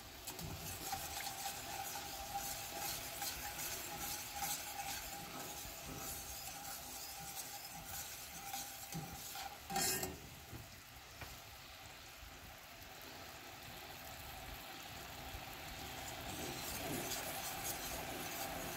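Wire whisk stirring bubbling brown-sugar butterscotch syrup in a stainless steel saucepan, the syrup sizzling at the boil. A single sharp clank of the whisk against the pan about halfway through, after which the stirring quietens before picking up again near the end.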